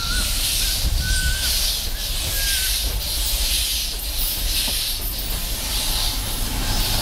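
Double Fairlie narrow-gauge steam locomotive moving slowly at low speed, its steam hissing in a soft pulsing beat about twice a second over a low rumble. A bird chirps a few times in the first few seconds.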